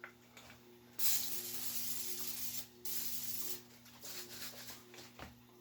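Aerosol can of coconut oil cooking spray hissing in three short bursts, the last one weaker. It sputters rather than spraying freely because the nozzle is clogged.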